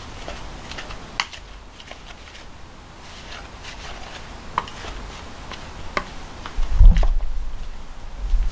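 Long cooking chopsticks stirring crumbly potato-and-flour dough in a bowl: scattered light clicks and taps as the chopsticks knock the bowl. About seven seconds in comes a sudden low thump and rumble, the loudest sound, which dies away over about a second.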